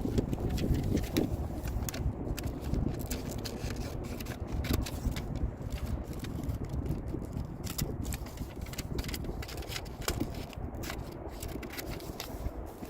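Paper being handled and worked for a sheath pattern: rustling, light scraping and scattered small clicks, over a steady low rumble in the background.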